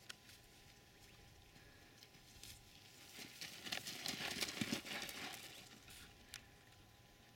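Quick hoof steps and scuffling on dry, gravelly ground as a European mouflon ewe rushes past, a clatter of rapid patters about three to five seconds in.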